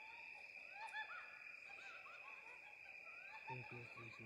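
Faint outdoor night chorus: a steady high insect trill under many short chirps that rise and fall in pitch, several a second.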